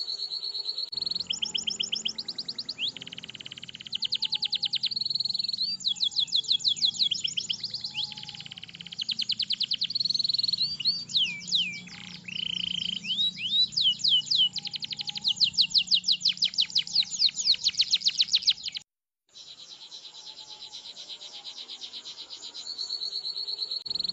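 Domestic canary singing a long rolling song: fast runs of rapidly repeated high notes and trills, with sweeping whistled notes in the middle. The song breaks off for a moment about three-quarters of the way through, then carries on.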